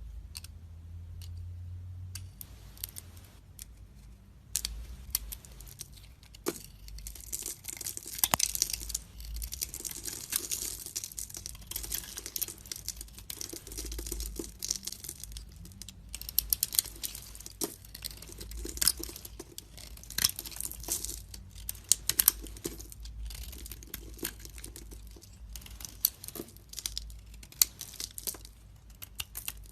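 Knife carving a bar of soap: crisp scraping and crackling cuts with sharp clicks, coming in irregular bursts. It is sparse for the first few seconds, then dense and steady.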